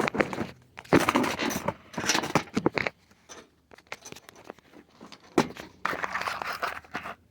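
Handling noise close to the microphone: irregular rustling and scraping with sharp knocks, busiest in the first few seconds and again near the end, with a quieter stretch in between.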